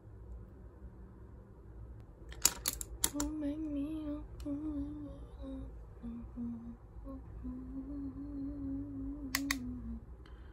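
A woman humming a wavering tune to herself, starting about three seconds in and running almost to the end. A few sharp clicks come just before the humming begins, and another near the end.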